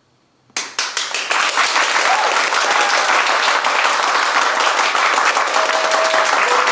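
A crowd of people applauding: the clapping breaks out suddenly about half a second in and quickly builds into steady, loud applause.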